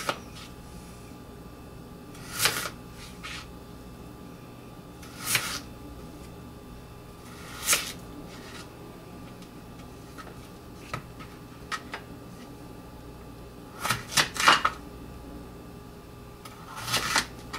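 Kitchen knife chopping through a peeled Korean radish onto a plastic cutting board: single sharp chops a few seconds apart, then a quick run of three about fourteen seconds in, with a few faint clicks between.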